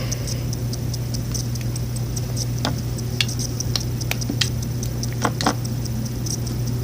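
Gooey slime being handled by hand, giving scattered small sticky clicks and pops over a steady low hum.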